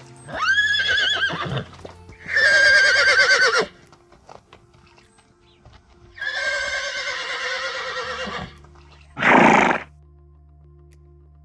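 An animal calling four times with loud, quavering calls: three long ones, then a short, rougher one near the end.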